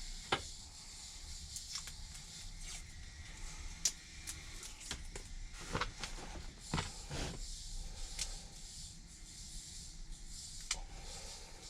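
Electrical tape pulled off its roll in a few short rasps about six and seven seconds in, among scattered small clicks and rustles of hands handling wiring.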